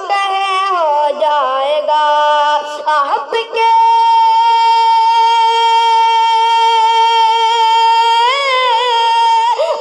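A young male voice singing a naat without accompaniment. Short ornamented phrases in the first few seconds give way to one long held note, with a rising turn near the end.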